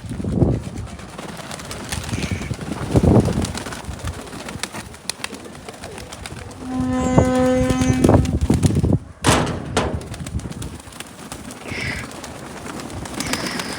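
Pigeons cooing, with wind buffeting the microphone in low rumbling gusts. A steady pitched tone is held for about two seconds mid-way, and a sharp rush of noise comes just after it.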